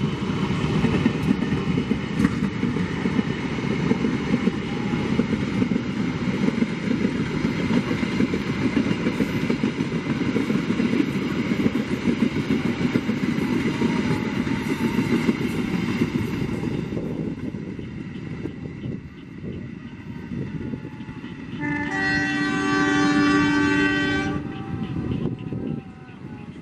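CC 203 diesel locomotive and its passenger coaches passing close by: engine rumble with wheel and rail noise, fading after about 17 s. About 22 s in, the train's horn sounds once, a chord of several tones held for about two seconds.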